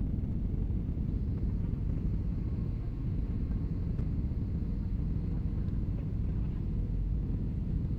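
Steady low rumble of an airliner cabin in flight: engine and airflow noise heard from a window seat.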